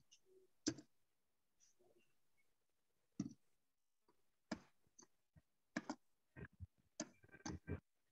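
Faint, irregular clicks of a computer mouse being clicked, about a dozen in all, coming more thickly toward the end.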